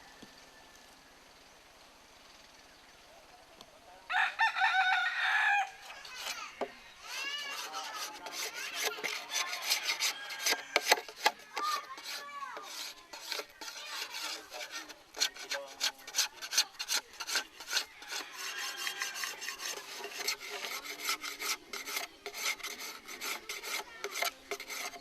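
A rooster crows once about four seconds in. Then a hand tool rasps on wood in rapid, repeated strokes, kept up steadily, with a few short clucks or calls in between.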